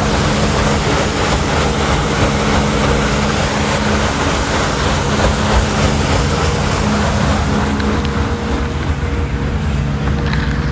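A passenger boat's engine droning steadily under the hiss of water and wind rushing past the hull. The hiss softens about eight seconds in.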